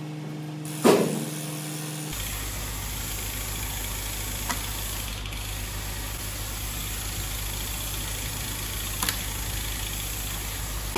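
Steady machine drone, like an engine running at idle, with a loud knock about a second in and two light clicks later.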